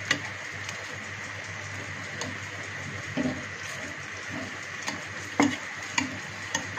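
Perforated steel slotted spoon pressing and scraping boiled potatoes in a kadhai, mashing them with spices, with about seven sharp clinks of the spoon against the pan over a steady hiss.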